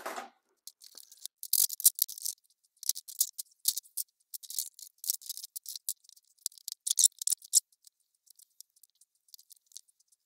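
A short knock, then rapid, irregular light clicking and rattling from a roll-up tonneau cover and its clamps and rails being worked loose and taken off a pickup bed. The clicks thin out near the end.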